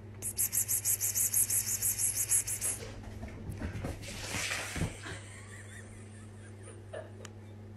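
A person calling a cat with a rapid 'pspsps' sound: about ten short hisses a second for two and a half seconds, over a steady low hum. A noisier stretch and a soft thump follow near five seconds in.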